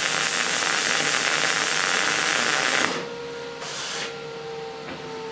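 MIG welding arc from an HTP Pro Pulse 200 running 0.030 wire: a steady, crackling sizzle for about three seconds, then the arc cuts off and only a faint steady hum remains.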